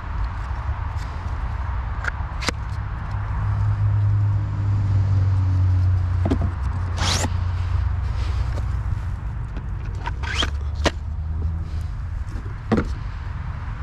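Handling noise from fitting wooden target sticks into a lifter's clamp bracket: a few sharp clicks and knocks, and a longer scrape about seven seconds in as a stick slides through the bracket. Under it runs a low steady rumble that swells for several seconds in the middle.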